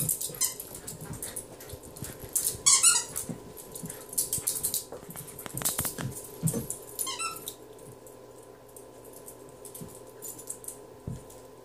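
A dog playing with plush toys, squeezing a squeaky toy in two quick runs of high squeaks, around three seconds in and again about seven seconds in, among scattered rustling and knocks as it shakes and chews them.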